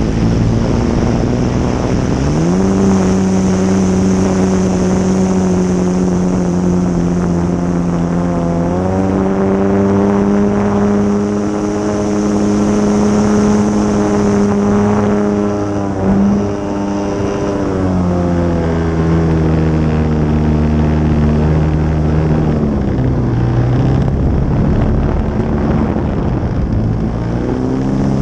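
GP123 engine of a Laser model aerobatic plane heard from an onboard camera, with wind rushing over the airframe. The engine is throttled up about two seconds in and again around nine seconds in, then held high. It is throttled back in steps from about eighteen seconds and picks up again near the end.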